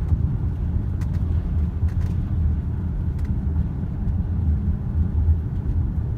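A car being driven, heard from inside: a steady low rumble of engine and road noise, with a few faint clicks.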